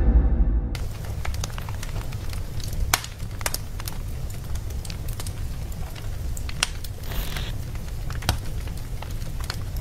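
Fire crackling: scattered sharp pops and snaps over a steady low rumble.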